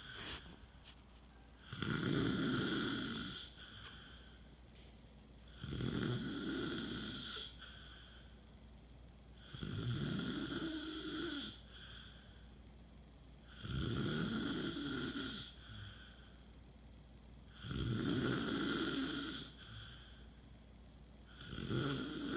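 A man snoring loudly in his sleep: six long snores, evenly spaced about every four seconds.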